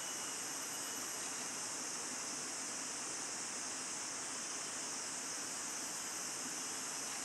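Steady, high-pitched drone of forest insects, unbroken and with no bird calls.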